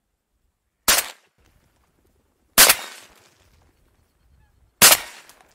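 Three shotgun shots from an MP-155 semi-automatic shotgun, about two seconds apart, each a sharp crack with a short fading tail.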